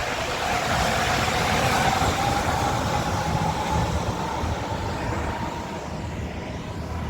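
Running noise of a New Shuttle rubber-tyred guideway train heard from inside the car, a steady rumble and hiss with an electric motor whine slowly rising in pitch.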